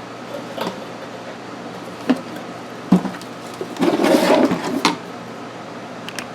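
Plastic parts of a car's AC air box being handled on a workbench: a few sharp clicks and knocks, and a scraping rustle lasting about a second around the middle, over a faint steady hum.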